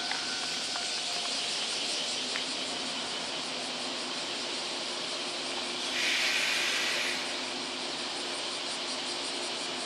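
JR West 117 series electric train pulling slowly into the platform, over a steady high hiss. A louder hiss lasts about a second, some six seconds in.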